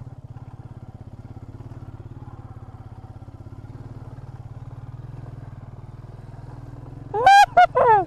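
Royal Enfield motorcycle engine running at low speed, a steady even pulse, as the bike rolls along a rough dirt track. About seven seconds in, two or three short, loud horn beeps cut in over it.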